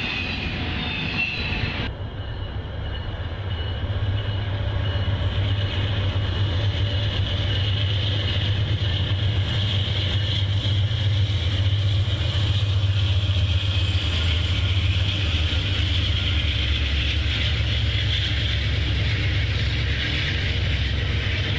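Freight cars of a double-stack train rolling by, then, after a sudden cut about two seconds in, an Amtrak passenger train with a GE Genesis diesel locomotive running past, a steady low hum growing louder from about four seconds as its bilevel cars roll by.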